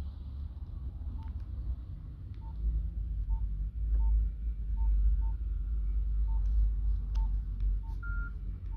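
Nokia Asha 210 keypad beeps as buttons are pressed: about a dozen short, single-pitch beeps at irregular spacing, with one longer, higher beep near the end, over a low rumble.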